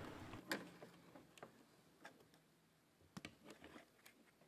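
Near silence broken by a handful of faint, sharp clicks, the first about half a second in the loudest, with a close pair a little after three seconds: wire cutters snipping wires off a small circuit board.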